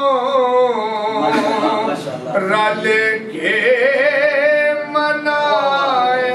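A man singing a naat, an Urdu devotional poem in praise of the Prophet, solo and unaccompanied into a microphone, in long held notes that bend and waver.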